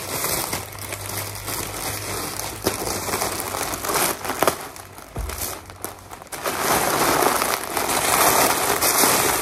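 A plastic courier bag crinkling and rustling as it is handled and opened. It grows louder and busier for the last few seconds.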